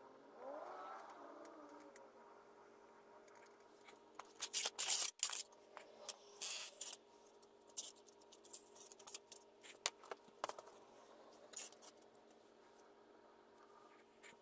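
Scratchy cutting and handling noises from craft work on paper and polystyrene foam, coming in irregular sharp strokes from about four seconds in, over a steady low hum.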